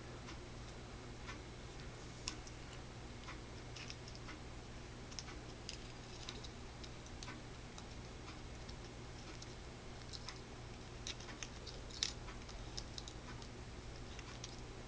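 Faint, scattered small clicks and ticks of a key ring being worked onto a keychain flashlight, with a couple of sharper clicks about two seconds in and near the end, over a faint steady low hum.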